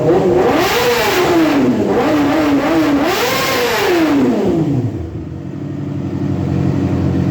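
Yamaha R6's inline-four engine revved twice in neutral: the pitch climbs to a peak about a second in and falls away, blips a few times, climbs again to a peak around three and a half seconds, then drops back to a steady idle.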